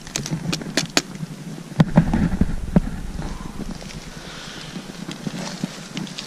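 Dry twigs and bark on the forest floor cracking and crunching, with handling knocks: several sharp cracks in the first second, then a louder cluster of knocks and rustle about two seconds in, fading to a quieter rustle.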